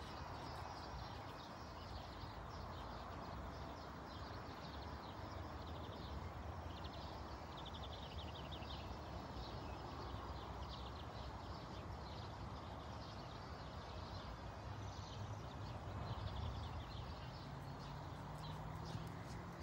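Hoofbeats of a ridden horse trotting on a soft dirt-and-grass arena, muffled by the ground. Birds chirp around the middle.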